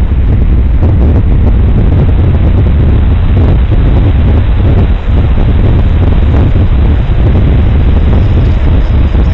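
Steady loud rush of wind buffeting the microphone on a radio-controlled Extra 330S aerobatic model in flight, with the model's engine and propeller noise mixed into the rumble.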